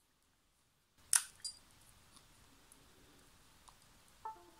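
A dropped Western Digital 1.5 TB laptop hard drive giving a sharp click about a second in and a lighter one just after, as it is pressed along its edge. Near the end comes a short two-note chime stepping down in pitch, the computer's sound for the drive disconnecting.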